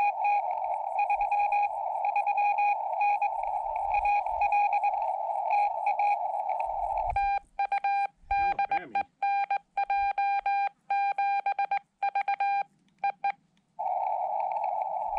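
Xiegu X5105 HF transceiver's CW audio: narrow-filtered receiver hiss with a Morse signal beeping in it. About seven seconds in the hiss cuts out as the rig switches to transmit, and the operator's own Morse sending plays as a clean keyed sidetone beep for about six seconds. Then the receiver hiss comes back near the end.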